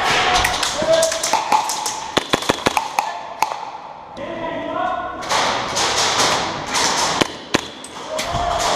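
Airsoft gunfire in an indoor arena: scattered sharp snaps and taps of shots and BBs striking walls, with a quick cluster of them about two to three and a half seconds in. Distant voices call out at times.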